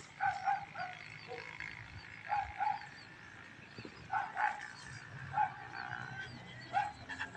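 Short animal calls, brief notes often in pairs, repeated every second or two, with faint high chirps behind them.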